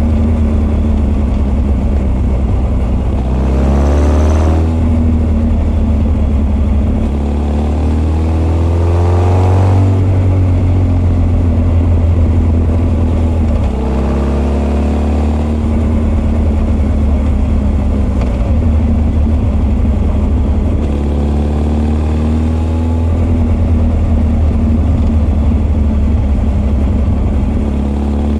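Honda CB1300 SF (SC40) inline-four breathing through open Keihin FCR41 carburettors and an r's gear Wyvern full exhaust, running under way with intake and exhaust both close to the mics. It runs steadily, and the revs climb in rising sweeps about 3 to 4 seconds in, again around 8 to 10 seconds, and after a brief dip near 14 seconds.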